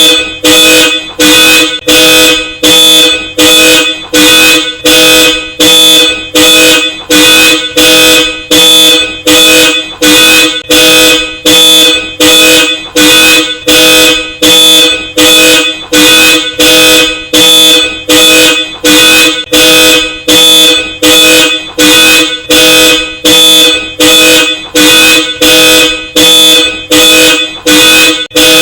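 A car alarm pulsing a Hella Supertone twin horn: loud, evenly spaced honks of one unchanging pitch, about three every two seconds, going on without a break.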